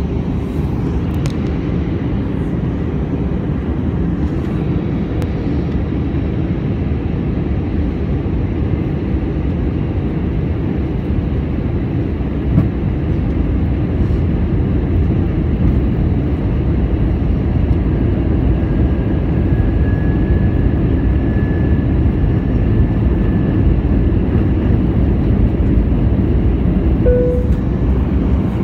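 Steady low rumble of an Airbus A319's engines and airflow heard inside the passenger cabin on approach.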